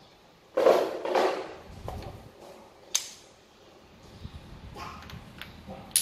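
Wooden toy blocks clacking against each other and on a tile floor: a short rattling clatter about half a second in, then single sharp knocks at about three seconds and near the end.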